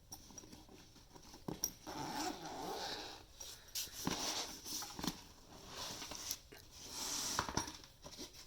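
Handling noises: rustling and scraping with several sharp clicks and knocks, as objects are picked up and moved by hand.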